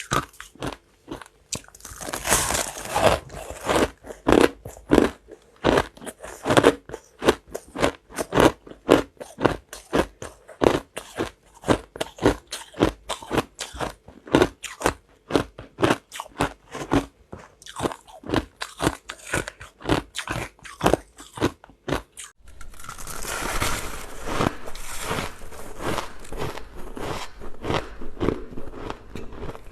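Close, repeated crunching, with loud crunches about two a second. About 22 seconds in it breaks off briefly and goes on as a denser, more continuous crackle.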